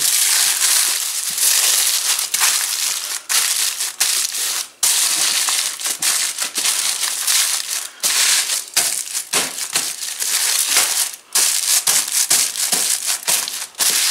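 Aluminium foil crinkling and crumpling as hands fold and roll it tightly into a packet, a near-continuous rustle with a few short breaks.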